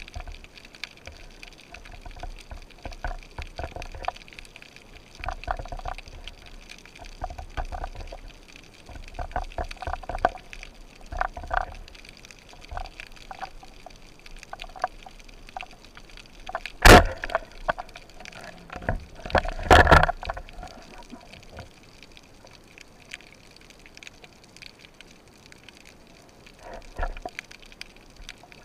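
Underwater sound around a rubber-band speargun: soft irregular knocks and rustles, then a single sharp, loud crack about seventeen seconds in as the speargun fires, followed a few seconds later by a burst of rattling.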